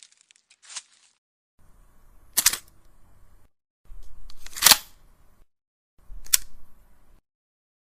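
Three sharp, sudden cracks, roughly two seconds apart, the middle one the loudest. Each sits in a brief patch of low background noise that starts and stops abruptly.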